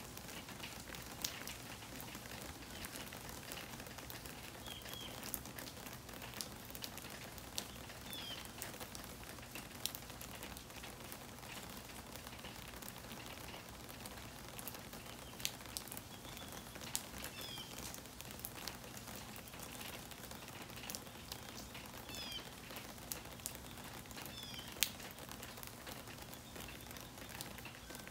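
Steady rain falling, with many sharp drip ticks close by. A bird chirps several times, short falling notes, often two in quick succession.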